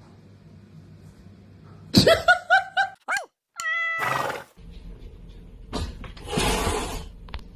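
Cat vocalisations: a quick run of about five high cries, then a falling call and a short steady meow-like call. A breathy noisy burst follows near the end. The sound drops out abruptly between them.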